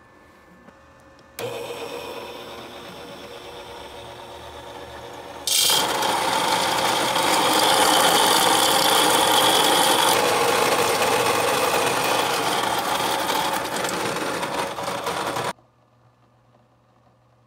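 Electric coffee grinder grinding whole coffee beans. It switches on about a second and a half in, gets louder about four seconds later, runs steadily, and stops suddenly about two seconds before the end.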